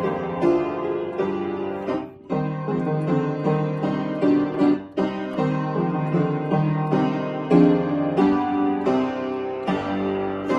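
Piano playing a piece of many quick notes, with a short break in the playing about two seconds in.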